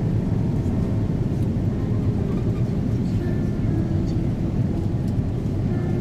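Steady low rumble of an Airbus A330-300 airliner's engines and airflow, heard from inside the passenger cabin, with faint brief tones over it.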